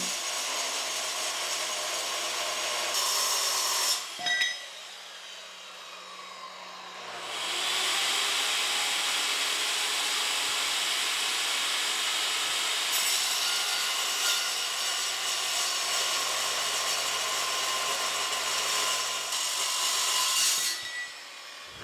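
Handheld circular saw cutting through steel plate, a steady high cutting noise over the motor's hum. It stops about four seconds in, starts again about three seconds later, and stops just before the end.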